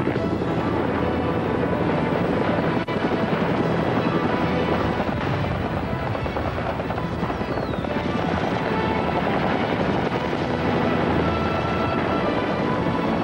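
Helicopter rotors running steadily under a film's music score.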